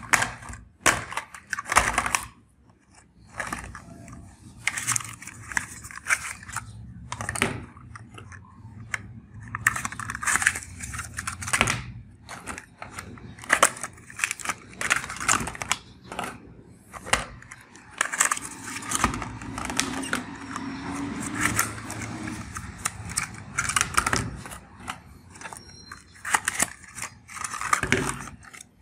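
Cardboard toothpaste cartons being handled and torn open by hand, with packaging crinkling and small plastic tubes knocking into a plastic tray, in irregular rustles and clicks.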